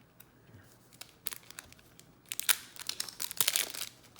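Foil trading-card pack wrapper crinkling and crackling as cards are handled: a few scattered crackles at first, then a dense run of crinkling for about a second and a half near the end.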